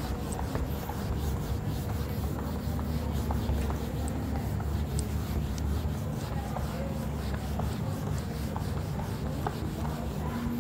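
Whiteboard being wiped clean with a cloth eraser: steady rubbing of cloth across the board's surface.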